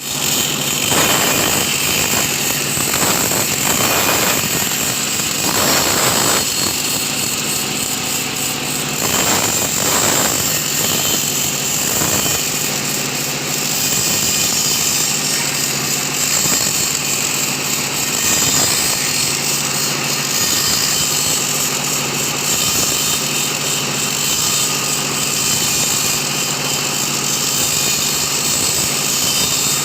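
Sawmill saw machinery running steadily, a loud machine hum with a strong high hiss, with several brief louder surges in the first ten seconds.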